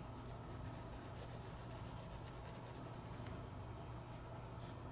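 Graphite pencil shading on sketchbook paper: a faint, steady scratching made of quick little strokes as the lead is rubbed over the paper to build up a darker tone.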